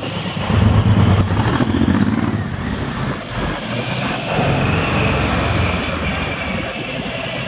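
Motorcycle engine running while riding along a street, louder for the first couple of seconds, with a steady rush of road noise.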